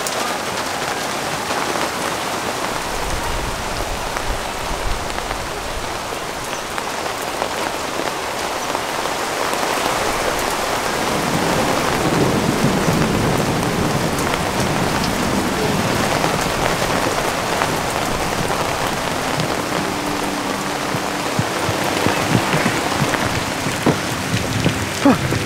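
Heavy rain pouring steadily, growing a little louder about halfway through.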